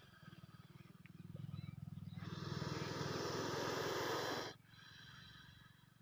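Indian cobra, hood spread, giving a defensive hiss. A long, forceful hiss builds about two seconds in and cuts off sharply a couple of seconds later. A weaker hiss follows, over a low pulsing rumble.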